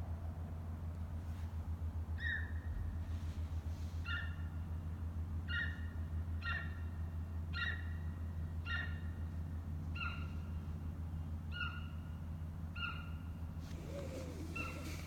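Ezo sika deer giving a string of short, high-pitched calls, about one every second or so, each dropping in pitch at its end, over a steady low hum.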